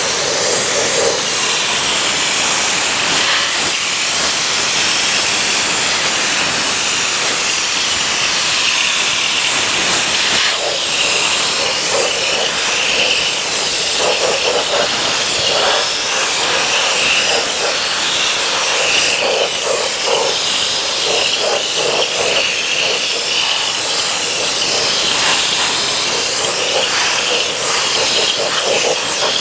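Compressed-air undercoating spray gun spraying oily rust-proofing, a loud steady hiss of air and atomised oil.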